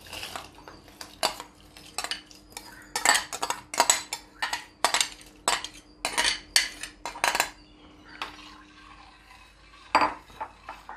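Steel spoon scraping and knocking against a ceramic bowl as rice and urad dal are tipped out of it into a pot of boiling water: a quick run of sharp clicks and scrapes, then a single knock of the spoon stirring in the steel pot near the end.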